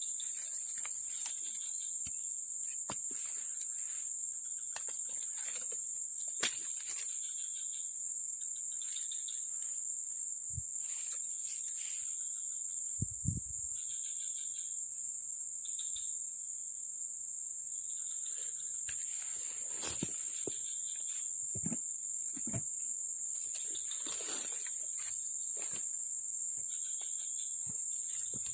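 Steady high-pitched insect drone, with scattered short clicks and rustles and a low thump about halfway through.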